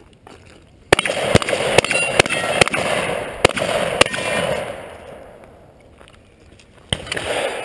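Shotgun fired in a rapid string of about seven shots, roughly two a second, the blasts echoing and running together. After a pause of almost three seconds comes one more shot near the end.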